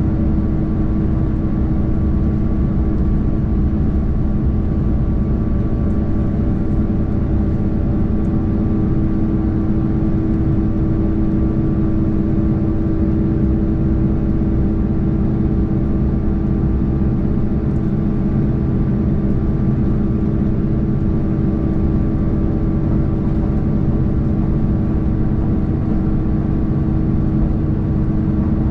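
Cabin noise of a KiHa 283 series diesel railcar running at speed: a steady drone of its diesel engine and running gear, with a constant humming tone over rumbling rolling noise.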